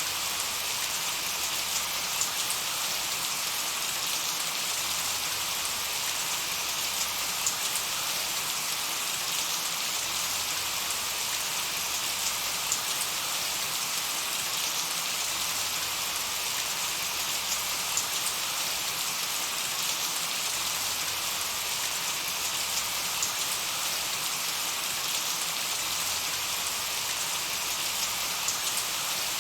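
Light, steady summer rain falling on a meadow: an even hiss of rain dotted with many small drop ticks.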